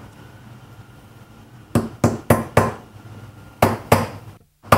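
Claw hammer driving a steel nail into a wooden block with sharp metal-on-metal strikes: four quick blows about two seconds in, then two more near the four-second mark.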